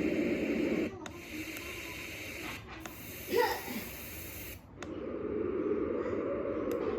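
SM-01 sound machine playing its built-in sleep sounds and switching from one to the next every second or two: a low rushing noise, then a thinner hiss, then a stretch with a brief sweeping sound, each change cutting in abruptly.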